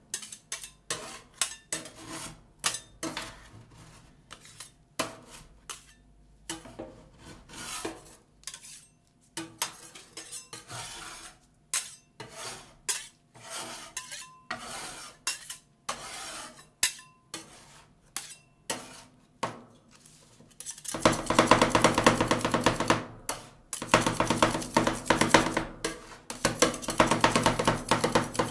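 Two steel spatulas tapping, scraping and chopping ice cream mixture on the stainless steel cold plate of a rolled ice cream machine. For about twenty seconds they make separate taps and scrapes. Then it turns into rapid, continuous chopping that is louder.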